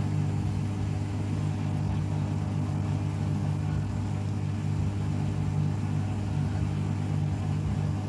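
Mademsa top-load washing machine giving off a steady, even hum in the last minute of its spin cycle, after the drum has stopped turning.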